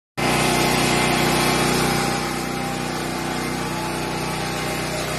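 Hair dryer running steadily, blowing hot air to melt ice built up in a fridge freezer.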